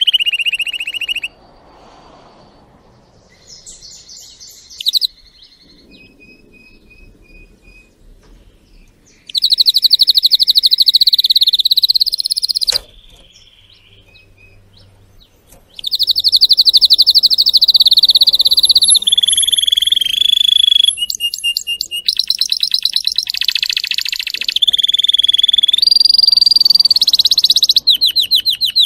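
Domestic canary singing: long loud rolls of rapidly repeated notes, changing pitch from phrase to phrase, broken by quieter gaps of short notes and trills, about a second in and again around 13 to 16 s.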